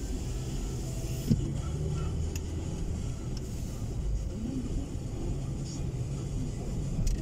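Steady low rumble of a car's engine and tyres heard from inside the moving car, with a single short knock about a second in.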